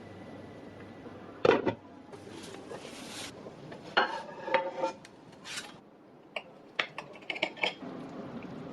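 Kitchen utensils and dishes clattering: a loud double knock about a second and a half in, a scraping rub, then ringing clinks and a run of short light clicks near the end.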